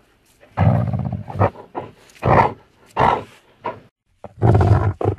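Horror-style monster voice sound effect for a werewolf: a string of short roars broken by brief silent gaps, the longest one coming near the end.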